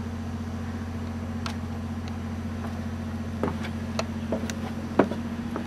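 A steady low mechanical hum, as of an engine or motor running, with a few short sharp clicks and knocks in the second half, the loudest about five seconds in.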